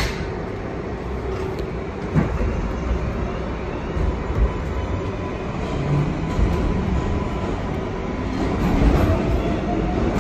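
Interior of an R142A New York subway car running between stations: the steady rumble of the train with a few short knocks from the wheels on the track.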